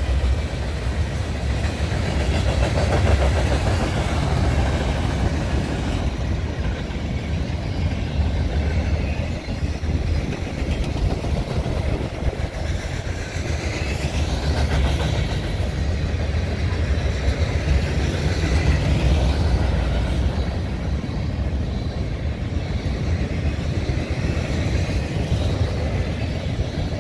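Freight cars of a long mixed freight train rolling steadily past, with a continuous rumble and clatter of wheels on rail. Wind is buffeting the microphone.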